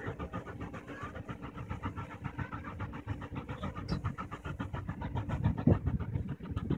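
N&W J-class 611 steam locomotive approaching at speed, its exhaust beats and running gear heard as a rapid, even pulsing rumble that grows a little louder toward the end.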